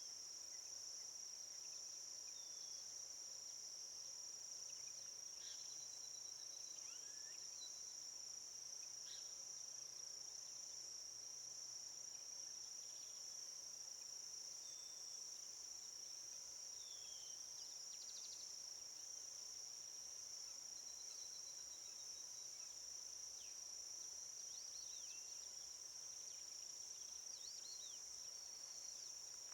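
A steady, high-pitched drone of insects, crickets or cicadas, with scattered faint chirps and short whistles from small birds.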